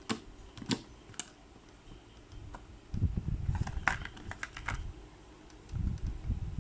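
Packaging and small plastic parts being handled during an unboxing: a few sharp clicks early on, then a run of clicks with low rubbing and bumping of handling from about three seconds in, and more handling near the end.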